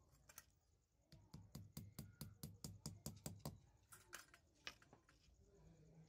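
Light clicking and tapping of thin bamboo sticks and small wooden parts being handled and fitted by hand: a quick run of about six clicks a second for a couple of seconds, then a few scattered clicks.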